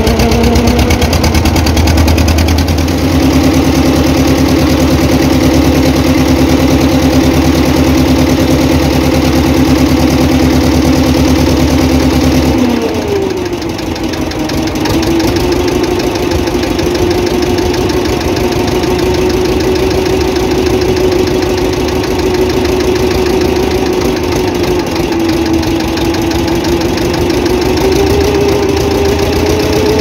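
Boat engine running steadily with a fast even beat. About twelve seconds in, its deep low rumble drops away and the pitch dips briefly, then holds steady and rises a little near the end.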